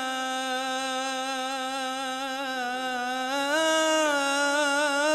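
A male radood's solo voice chanting an Arabic religious jalwa line, holding one long melismatic note that steps up slightly about three and a half seconds in.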